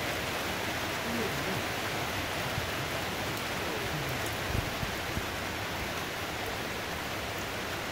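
Heavy tropical downpour: a steady hiss of rain pouring onto a sheet-metal roof and flooded ground, with one brief low thump about halfway through.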